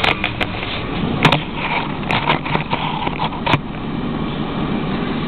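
Clicks and knocks of a handheld camera being handled, over a steady rumbling noise; the clicks stop about three and a half seconds in.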